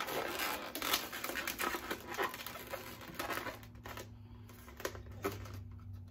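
Latex twisting balloons rubbing and squeaking against each other as they are pulled tight and wrapped together, a dense run of squeaks and crinkles that thins out about halfway through.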